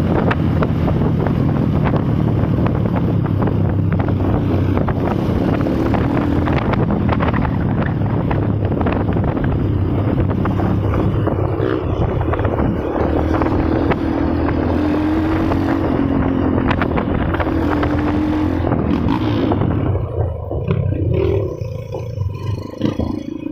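A vehicle engine running steadily with wind noise on the microphone; the sound turns choppier and quieter near the end.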